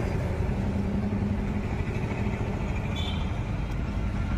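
Steady low rumble of motor vehicle engines running nearby, with a brief high-pitched tone about three seconds in.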